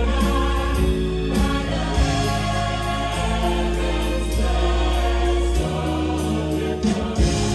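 Music with a choir singing over sustained low bass notes.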